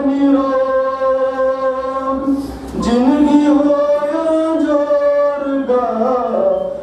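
A man singing verse in a slow, melodic chant, holding long drawn-out notes in two long phrases with a short breath between, then shorter phrases near the end.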